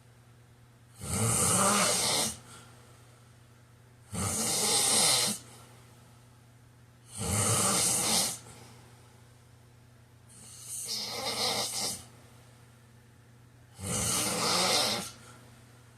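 A man snoring in his sleep: five snores, each a little over a second long, coming about every three seconds in an even breathing rhythm, with quiet gaps between them.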